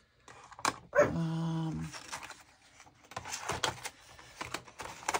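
A dog gives one steady, low whine about a second long, starting about a second in. It is followed by a run of light clicks and rattles as colored pencils are handled in their metal tin.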